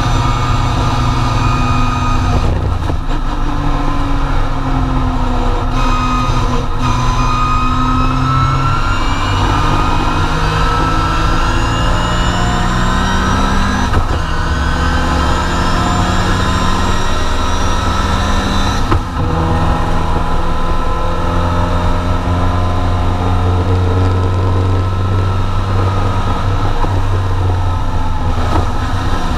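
Triumph TR4 race car's four-cylinder engine at full racing speed, heard from inside the cockpit, climbing in pitch again and again as it pulls through the gears with a drop at each gear change. About two-thirds of the way through there is a short break in the sound.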